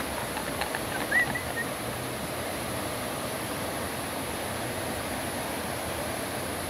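Steady rushing of river water over rocks, with a few short high chirps about a second in.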